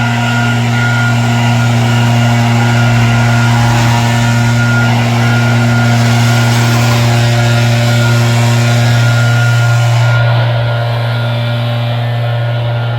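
A motor running steadily with a constant low hum, under a broad hiss that eases slightly about ten seconds in.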